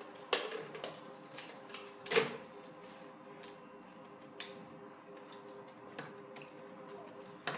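Scattered clicks and knocks of hands fitting cables inside an open desktop PC case, the loudest about two seconds in, over a faint steady hum.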